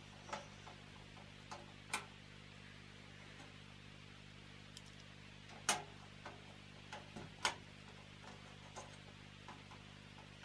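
Scattered light clicks and taps of metal and plastic PC parts being handled during assembly, with four sharper knocks over a faint steady low hum.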